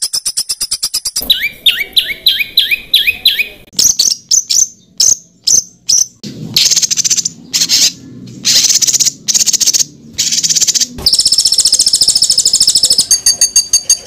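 A string of different songbirds' calls spliced one after another. It starts with a fast high ticking, then about three rising notes a second, then sharp separate notes and harsher scratchy calls, and ends with a rapid high trill.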